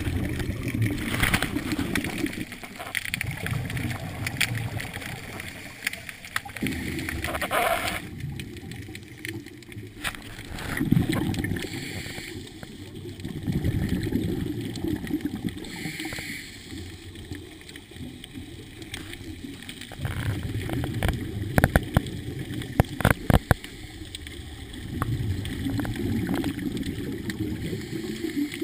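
Underwater scuba breathing: exhaled regulator bubbles rising in low, gurgling surges every few seconds, with hiss between them. A run of sharp clicks about three quarters through.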